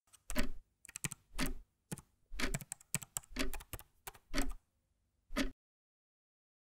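A series of about ten sharp clacks, unevenly spaced, each with a slight low thud, stopping after about five and a half seconds.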